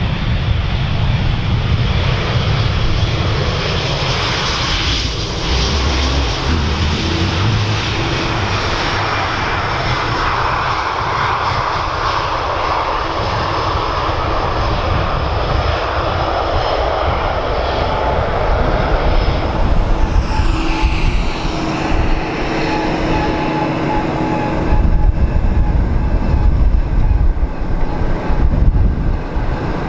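Airbus A320-family airliner's jet engines running as the aircraft passes, a steady loud jet noise. The sound changes about 18 seconds in to a second A320-family jet, and a deeper, louder rumble builds in the last few seconds.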